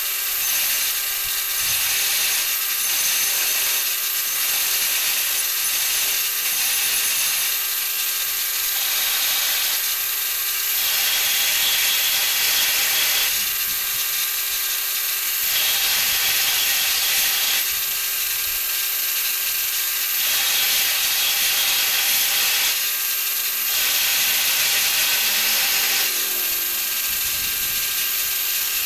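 Belt grinder running, with a steel axe head ground against the belt in passes, so the grinding hiss swells and eases over a steady motor hum.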